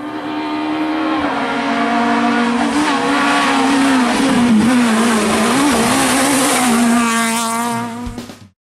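Renault Clio S1600 rally car's 1.6-litre four-cylinder engine at high revs as the car approaches and passes, its pitch wavering up and down with the throttle through the bends. The sound cuts off suddenly near the end.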